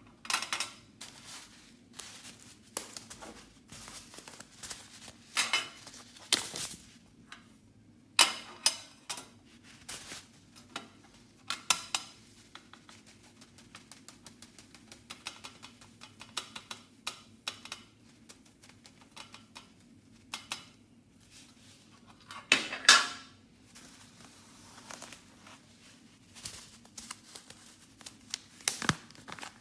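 Slime being mixed and handled: irregular sticky clicks and pops, with a few louder clacks about 8 seconds in, near the middle and near the end.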